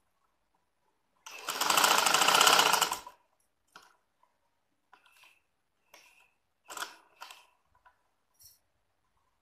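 Sewing machine running for about two seconds, putting a short line of stitching across the ends of a waistband elastic to make it secure. A few light clicks and rustles of the work being handled follow.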